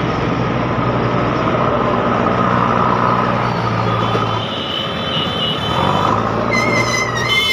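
Motorcycle riding in dense city traffic: its engine runs steadily under road and traffic noise, easing off briefly around the middle. Near the end a high-pitched vehicle horn sounds for about a second.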